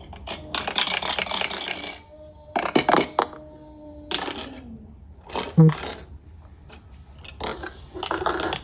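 Metallic jingling and clinking in several bursts, the longest lasting about a second and a half near the start.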